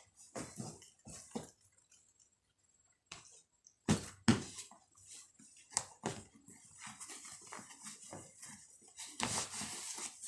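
Clothes and a fabric bag rustling and scraping as garments are stuffed in and pressed down by hand, in short irregular bursts, with two sharp thumps about four seconds in.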